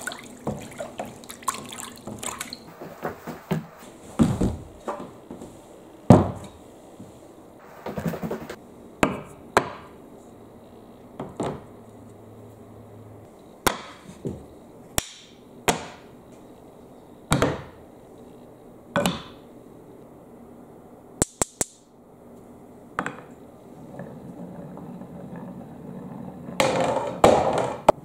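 Water splashing as a hand stirs a tub. Then a long run of separate knocks as wooden blocks are set down on wooden boards, one every second or two, with a longer clatter near the end.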